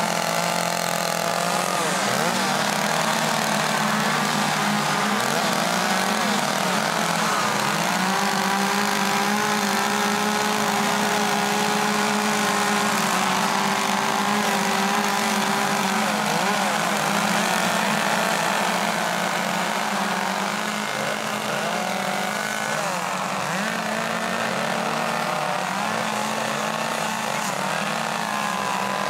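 Several two-stroke carving chainsaws running at once, each revving up and down as it cuts into wood, their engine notes overlapping in a continuous drone.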